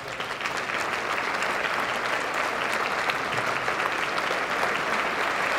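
Audience applauding: many people clapping at a steady level throughout.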